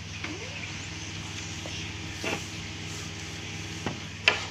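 Hand handling beside a printer on a counter: a few light clicks and knocks, then two sharp knocks near the end, over a steady low hum.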